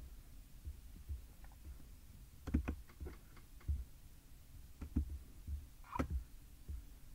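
Irregular computer mouse clicks and low thumps of handling at the desk, about a dozen, bunched together about two and a half seconds in, with a stronger click about six seconds in, over a faint low hum.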